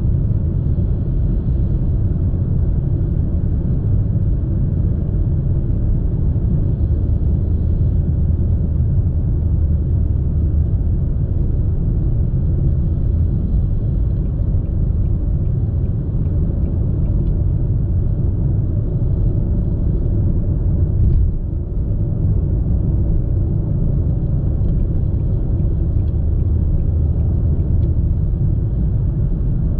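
Road noise inside a Nissan Sylphy's cabin at highway speed: a steady low rumble of tyres, wind and engine coming through the car's sound insulation, which the driver finds still somewhat loud above 110 km/h. About twenty seconds in the rumble briefly swells, then dips for a moment.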